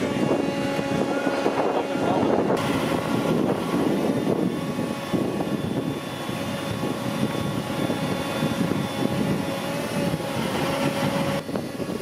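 Caterpillar asphalt paver's diesel engine running steadily at work, a continuous machine drone with a steady whining tone over it.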